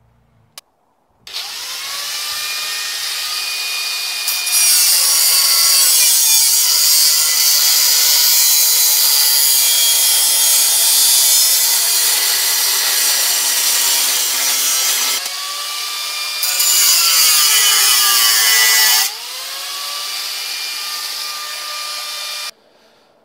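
Angle grinder spinning up and grinding steel: a loud hiss over the motor's whine in two long passes, with the motor's pitch sagging under load. It runs free between and after the passes, then stops near the end.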